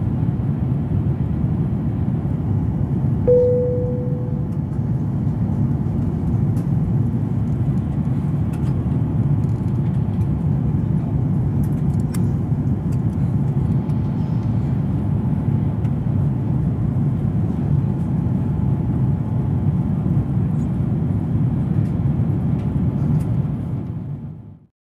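Cabin noise inside an Airbus A350 airliner climbing after takeoff: a steady low rumble of engines and airflow. A single chime rings and dies away about three seconds in, and the noise fades out near the end.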